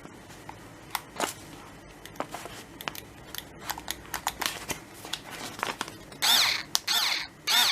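Plastic clicks as the Ryobi 4 V cordless screwdriver is handled and switched, then its small geared motor whirring in three short bursts near the end, running in first speed.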